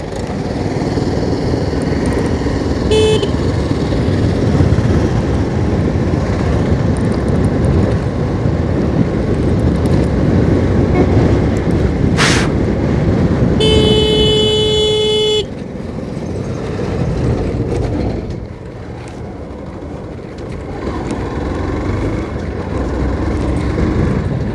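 Riding noise from a motorcycle on the move: a steady rush of wind and engine. A vehicle horn toots briefly about three seconds in, then sounds one longer blast of about two seconds around the middle.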